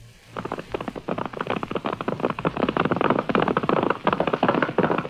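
Galloping horse hoofbeats sound effect: a fast, continuous drumming of hooves that starts a moment in.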